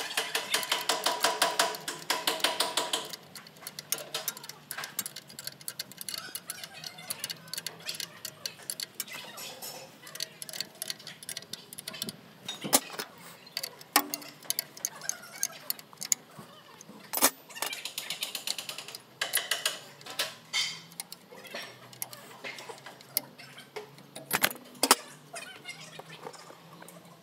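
Hand ratchet wrench clicking in quick runs, one in the first three seconds and another past the middle, with scattered tool clicks and three sharp metal knocks in between.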